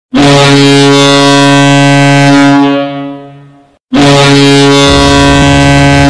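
Toronto Marlies hockey goal horn: two long, loud, low blasts, the first fading out about three and a half seconds in and the second starting right after. Music with a heavy low drum beat comes in under the second blast about five seconds in.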